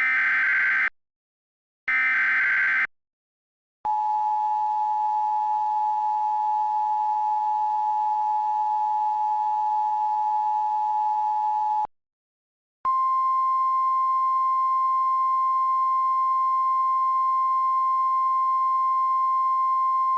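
Emergency Alert System activation: the last two of the three warbling SAME header data bursts, then the 853/960 Hz two-tone EAS attention signal for about eight seconds, and after a one-second gap the steady 1050 Hz NOAA Weather Radio alert tone for about eight seconds. The tones introduce an Evacuation Immediate alert.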